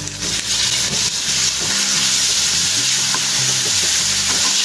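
Tomato, onion and spice masala sizzling in an oiled frying pan while a wooden spatula stirs and scrapes through it. The sizzle is a steady hiss.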